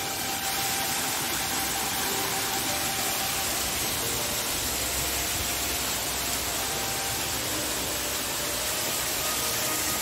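Tall mountain waterfall falling over rock slabs, heard up close: a steady, even rush of water.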